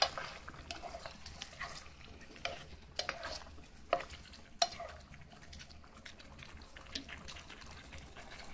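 White plastic spoon stirring chicken thighs, onions, chilies and ginger in a skillet with a little cooking liquid, giving irregular scrapes and light clicks against the pan.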